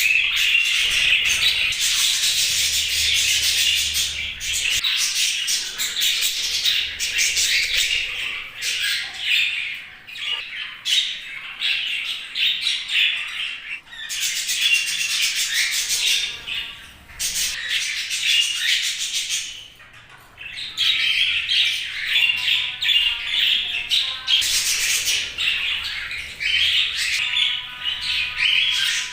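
Budgerigars chattering: a dense stream of warbling chirps, clicks and squawks, with a short lull about two-thirds of the way through.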